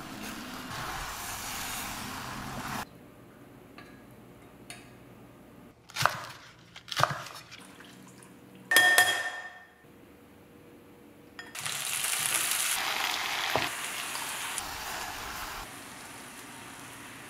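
Baby octopus and rice cakes sizzling in a cast-iron skillet as they are stirred, for about three seconds at the start and again from about 11 to 16 seconds in. In between come two sharp knocks and water poured from a pitcher into a bowl.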